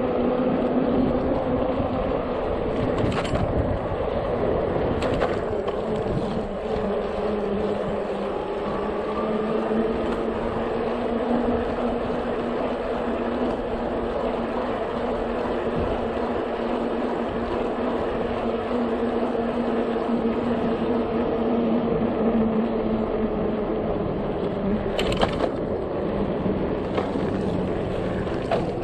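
RadMini electric bike in motion: a steady hub-motor hum whose pitch drifts slowly with speed, over wind and tyre noise. A few sharp knocks or rattles break in, about 3, 5 and 25 seconds in.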